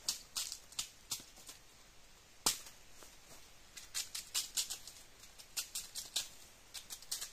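Dry bamboo leaves, sheaths and twigs crackling and snapping in quick clusters as they are pulled and broken by hand while bamboo shoots are gathered, with one sharper snap about two and a half seconds in.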